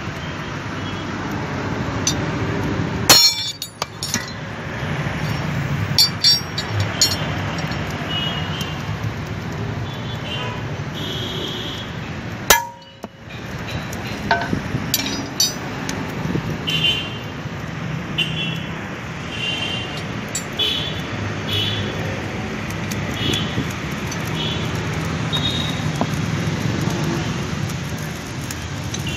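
Hammer blows on steel at an anvil, each a sharp clink with a short metallic ring. They come irregularly at first, then in a loose run of strikes about twice a second, over a steady background noise.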